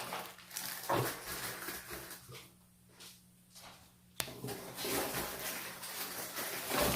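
Plastic packaging of a hula hoop set rustling and crinkling as it is handled and unwrapped, with a sharp click about four seconds in.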